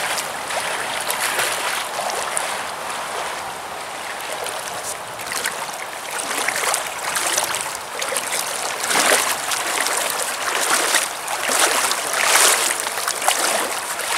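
Shallow creek water running steadily, broken by repeated splashes of a hooked steelhead thrashing at the surface as it is played in. The splashes come more often and louder in the second half.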